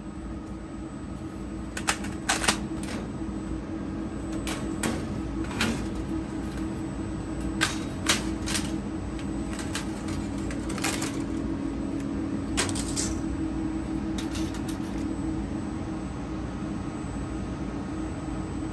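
Thin 0.2 mm spring steel sheet giving sharp metallic clicks and ticks as cut pieces are lifted and flexed off the laser cutter's honeycomb bed. The clicks come in small clusters every couple of seconds over a steady low hum.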